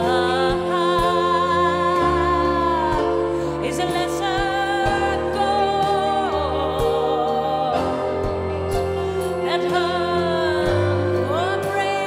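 A woman singing long, held, wordless notes with vibrato, gliding between pitches and belting at full voice, over instrumental accompaniment with a steady low pulse.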